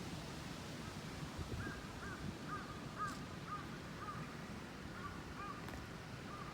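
A bird calling in a rapid series of short chirps, about two a second, starting a little over a second in.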